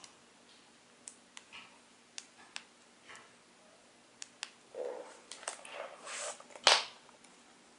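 Scattered small clicks and handling noise from an earphone cable and its inline remote button being handled and pressed, with a few brief rustles, and one sharp click near the end that is the loudest sound.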